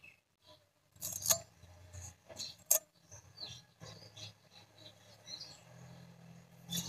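Bottle gourd stems being peeled of their stringy skin by hand beside a boti blade: soft scratchy rubbing and rustling, with two sharp clicks about a second and a half apart.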